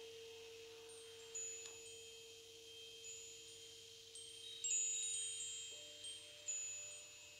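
Soft chimes ringing, clear high notes struck about once a second, each fading out, over a held lower tone.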